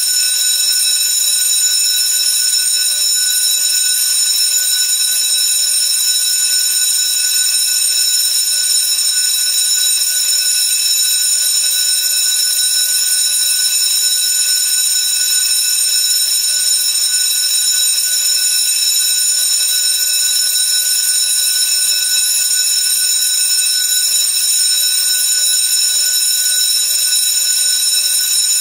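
School bell ringing continuously: a loud, unbroken metallic ring with several fixed high pitches that holds steady without a pause.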